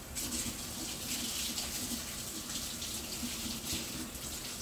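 Kitchen sink faucet turned on and running steadily while hands are washed under the stream.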